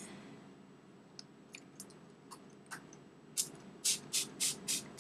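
Pump-spray bottle of Pixi Glow Mist facial mist being sprayed: a quick run of about six short hissing sprays in the last second and a half, after a few faint clicks.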